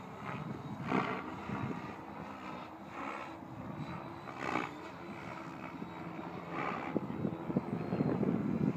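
Align T-Rex 700E electric RC helicopter in flight: a steady pitched whine of motor and main rotor that shifts slightly in pitch, with swells of rotor noise every second or two as it manoeuvres.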